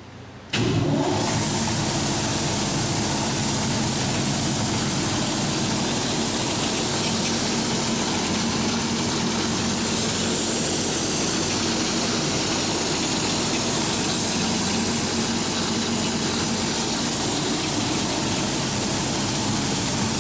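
DoAll ZW-3620 Zephyr vertical band saw switched on about half a second in and running steadily in its low speed range, a constant mechanical running noise with a low steady hum.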